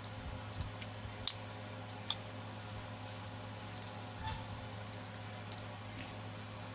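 Light scattered clicks and taps of hands handling a blender armature and its copper winding wire, with two sharper clicks about one and two seconds in, over a steady low hum.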